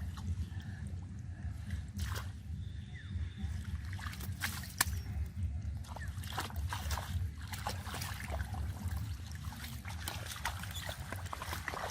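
Muddy shallow water sloshing and splashing as hands and bodies work through it, with many small irregular splashes and drips over a steady low rumble.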